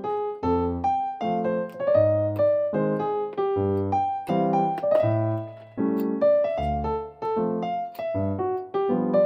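Background music: piano or electric piano playing a melody over a bass line at a steady, moderate pace.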